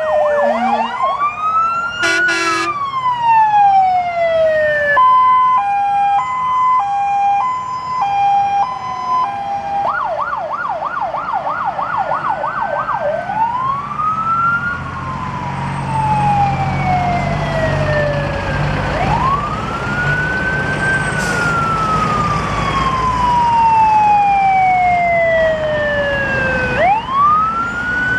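Sirens of several fire engines driving past in a convoy, overlapping: slow rising-and-falling wails, a fast yelp and a two-tone hi-lo pattern. A short horn blast sounds about two seconds in, and the trucks' engines rumble as they pass in the second half.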